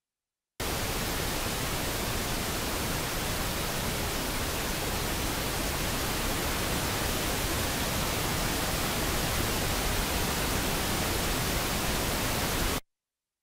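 Pink noise from a software tone generator: a steady, even hiss that switches on abruptly about half a second in and cuts off suddenly near the end. It is a −20 dB reference signal for matching the mixer's input and output levels.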